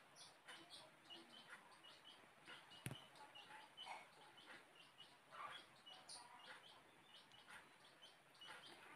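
Near silence with faint, short bird chirps repeating irregularly in the background, and a single sharp click about three seconds in.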